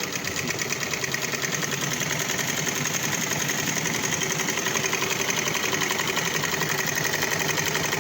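Manual sewing machine head driven by a 12-volt DC motor through a belt, running at a steady speed with a fast, even stitching rhythm.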